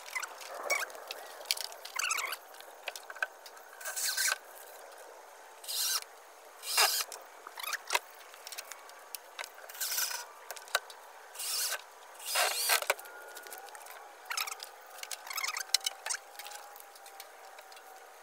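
Cordless drill driving screws into a wooden frame in several short bursts, with scraping and handling sounds between them as a metal plumbing strap is fastened around a plastic drum.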